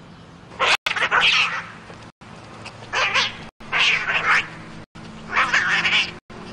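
Two cats fighting, giving four harsh screeching yowls about a second apart.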